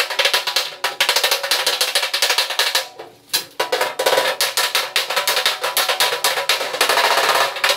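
Rapid, repeated hammer blows on a steel tractor body panel, a body hammer working against a dolly to knock out a dent, about eight to ten strikes a second, with a short pause about three seconds in.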